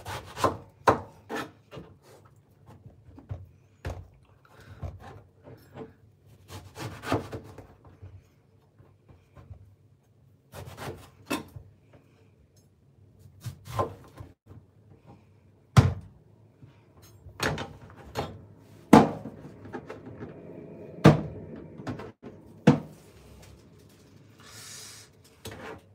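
Kitchen knife cutting and scraping through the thick white pith and rind of a banpeiyu, a giant pomelo, with irregular sharp knocks and rubbing; a few louder knocks come in the second half.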